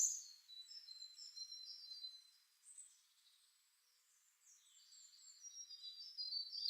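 Small birds chirping and twittering faintly in the background, in short high chirps and quick falling notes. The birds fall quiet for a couple of seconds in the middle, then pick up again near the end.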